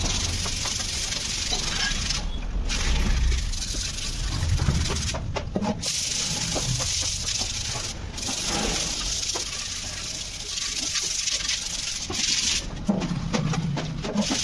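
Hands scrubbing the rusty steel fuel tank of a Hero Honda CD 100 SS to take off rust and old paint: a scratchy, hissing rub that stops briefly four times as the hands lift or the tank is turned.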